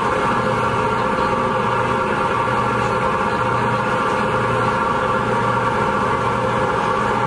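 A ferry's engines running with a steady, even drone heard from the open deck.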